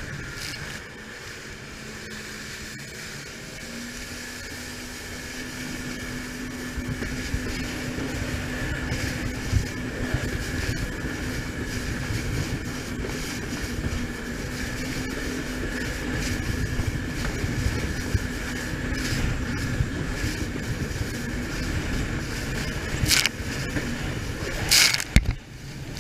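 WaveRunner personal watercraft engine and jet running steadily at speed, over a rush of wind and water; its pitch steps up slightly about four seconds in. A few sharp hits near the end.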